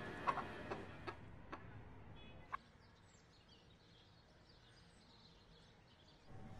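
Quiet room tone with a few faint clicks in the first couple of seconds, then faint high chirping in the background.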